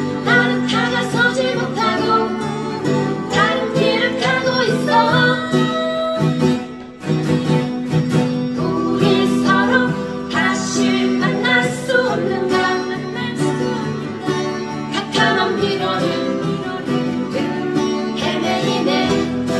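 Guitar playing the melody line of a song, with some bent notes, over sustained low accompaniment.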